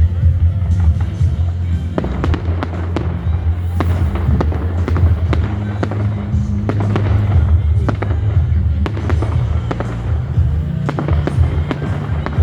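Aerial fireworks going off in rapid runs of bangs and crackles, thickest in two spells, over music with a heavy steady bass.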